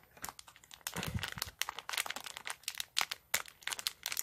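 Small foil blind bag crinkling as it is squeezed and worked open by hand, a dense run of irregular crackles.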